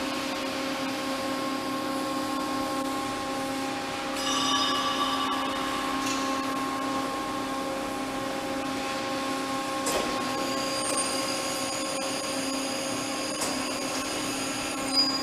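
Automatic tool changer of a gantry-type five-axis machining center working through a vertical tool change, over a steady electric hum from the machine. A motor whine rises about four seconds in, a sharp click comes near ten seconds, and a thin high whine runs through the last few seconds.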